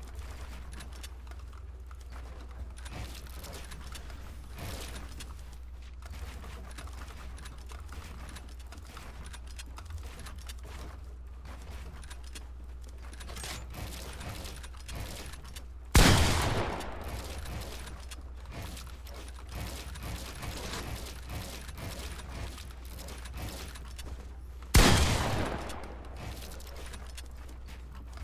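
Two sudden loud bangs about nine seconds apart, each dying away over a second or so, over a steady low hum and faint scattered clicking.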